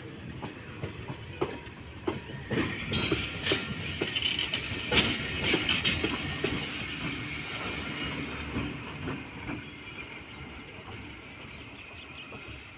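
Passenger train hauled by a WAP-4 electric locomotive rolling past close by: steady rolling noise with wheels clicking over rail joints. It grows louder a few seconds in with added hiss, then fades toward the end.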